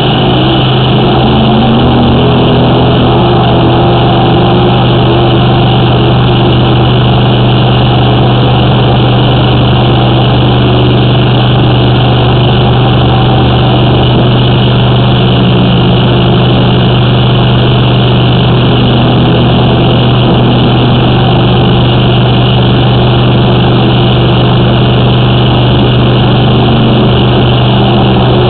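An engine runs at a steady, unchanging speed and drives the high-pressure water jetter used for drain clearing. It makes a loud constant drone with a low hum.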